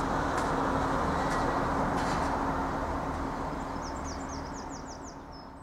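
Steady outdoor noise with a constant low hum, and a small bird's quick run of high chirps about four seconds in; it all fades out near the end.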